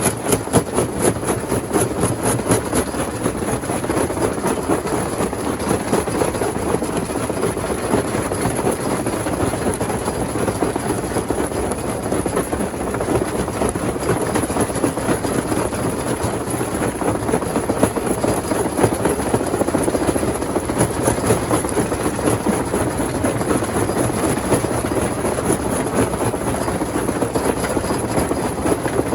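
Stone crusher machine running, a steady heavy mechanical din with rapid, constant clatter of rock being crushed.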